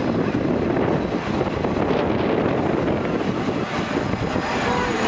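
Diesel train pulling slowly into the platform and passing close by: a steady engine drone mixed with the running noise of wheels on the rails.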